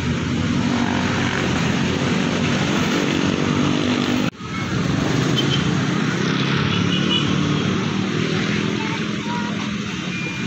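A motor running steadily with a low drone, briefly cut off about four seconds in.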